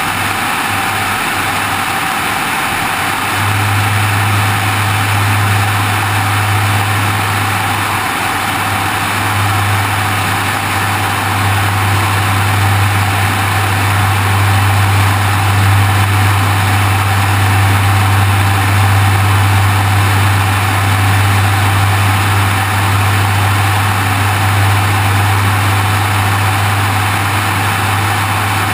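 Light aircraft in flight, heard from a camera on the wing: a steady low drone of the engine and propeller under a constant rush of wind noise. The drone grows stronger a few seconds in.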